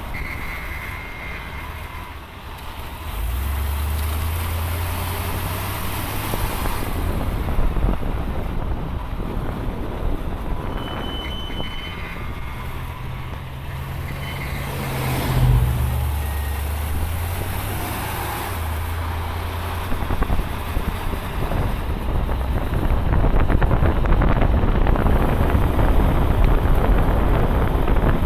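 Mercedes-Benz W126 on the move, with steady low engine and road noise throughout. A few brief high-pitched squeals from the brakes come through, one near the start and two about midway.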